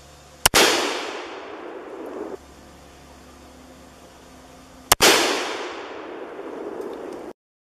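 Two shots from a Thompson Center Contender single-shot pistol chambered in 30-30 Winchester, about four and a half seconds apart. Each is a sharp crack followed by a long echo that fades away over about two seconds.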